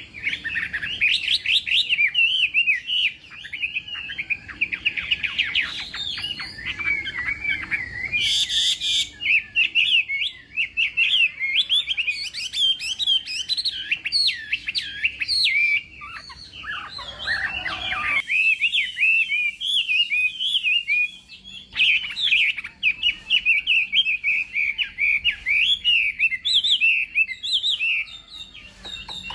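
Chinese hwamei (hoạ mi) singing a long, fast, varied warbling song, with one harsh buzzy note about a third of the way in and a quieter stretch a little past halfway before the full song returns.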